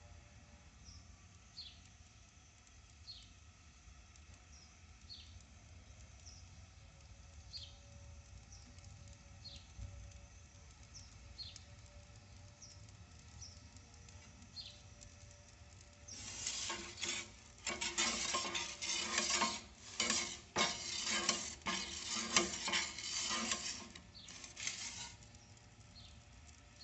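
Faint short bird chirps about every second or two over a low steady rumble. About two-thirds of the way through comes some nine seconds of loud, choppy scraping and rattling, which stops shortly before the end.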